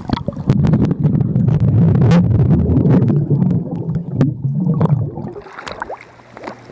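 Muffled underwater rumbling and bubbling in a swimming pool, heard with the microphone submerged, as a mass of air bubbles churns past, with scattered small clicks. The churning eases off about five seconds in.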